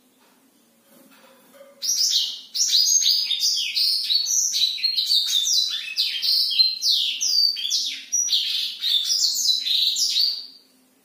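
Caged black-throated canary (blackthroat) singing a long, unbroken song of rapid, varied high chirps and trills. The song starts about two seconds in and stops shortly before the end.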